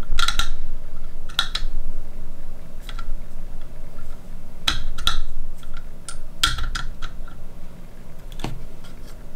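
Irregular sharp clicks and knocks, some in quick pairs, from handling a KME knife sharpener's clamp while the knife is loosened and repositioned further up the blade.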